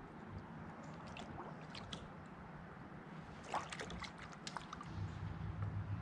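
Faint water sounds at a kayak: light splashes, drips and small knocks, a cluster of them a little past halfway. A low steady hum comes in near the end.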